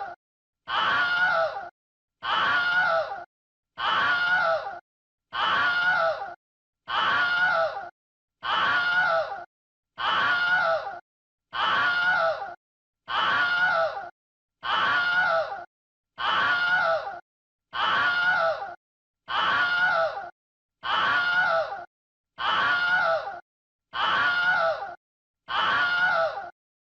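A person screaming: the same scream, about a second long with a wavering pitch, repeated over and over roughly every 1.3 seconds with a brief silence between each.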